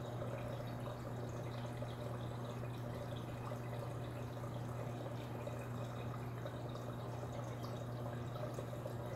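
Reef aquarium water circulating, trickling and dripping steadily over a constant low hum.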